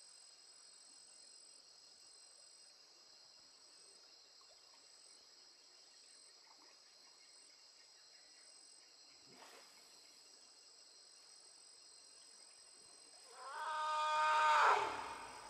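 Forest elephant trumpeting once near the end, a loud call about a second and a half long at a steady pitch. It sounds over a steady, high, shrill chorus of insects.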